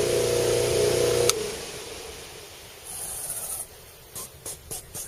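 Bench buffer motor running steadily at its low speed of about 1850 rpm, then switched off about a second in, its hum dropping away. A short hiss and a few light clicks follow near the end.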